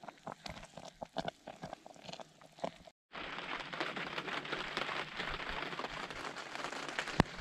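Scattered light clicks of metal tongs against a cast iron Dutch oven, then from about three seconds in a steady patter of rain, with one sharp click near the end.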